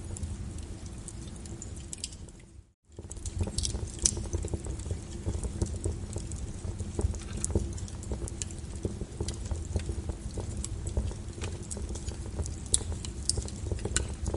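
Wood fire crackling: irregular sharp pops and snaps over a low steady rumble. The sound dips out to a brief silence about two and a half seconds in, then comes back.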